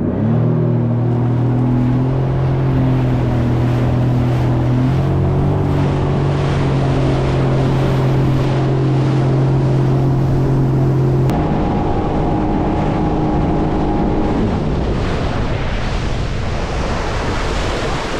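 Sea-Doo Fish Pro Trophy jet ski pulling away and running at speed, its engine tone climbing at the start and then holding steady. About eleven seconds in the engine note changes pitch, and a few seconds later it fades under the rush of wind on the microphone and water.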